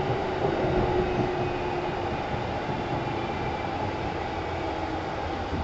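Kintetsu 1010 series electric train running at speed between stations, heard from on board: a steady rumble of wheels and running gear. A steady hum fades away over about the first two seconds.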